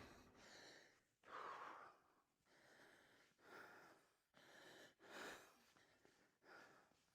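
Faint, heavy breathing of a man, a breath in or out about every second.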